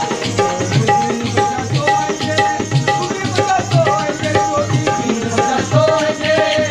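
Dholak hand drum played in a quick, steady folk rhythm, with a melody of held notes over it: Rajasthani folk accompaniment.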